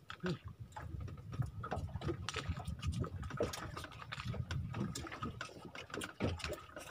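Men eating grilled grouper with their hands: scattered small clicks and smacking sounds of chewing and picking at the fish, over a low steady rumble.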